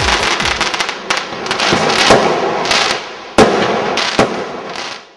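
Fireworks crackling and bursting, with two sharp bangs in the second half, then fading out at the end.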